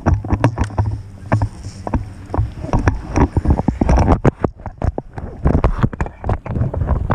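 Camera handling noise: a rapid, irregular run of knocks, taps and rubbing on the action camera as it is moved and set down.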